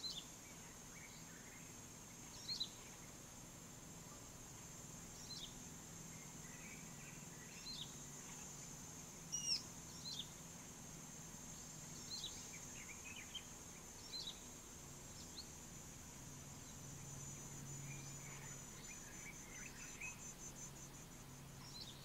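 Birds calling over a steady high insect trill: one bird gives a short, sharp, high down-slurred note every couple of seconds, with softer twittering between. The trill breaks into a fast pulsing rhythm near the end, over a faint low hum.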